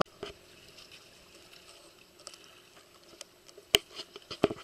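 A few short, sharp slaps and taps over a faint steady background, the loudest a little before the end followed by a quick cluster: a small fish flapping in the hand over wooden dock boards.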